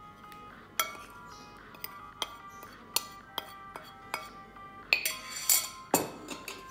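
A metal spoon clinking and scraping against a ceramic plate as flour is pushed off it into a mixing bowl: sharp taps about once a second, then a louder scrape and a knock near the end. Light background music plays underneath.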